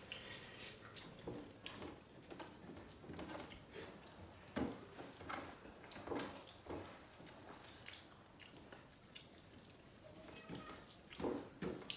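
Close-up eating sounds: wet smacking and chewing, and hands squishing dal and rice on steel plates, heard as scattered short wet clicks, a couple of them sharper.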